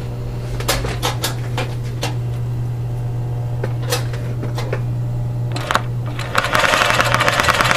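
Industrial zigzag embroidery sewing machine with its motor humming steadily and a few scattered clicks. About six seconds in it starts stitching at speed: a loud, fast, even clatter of the needle.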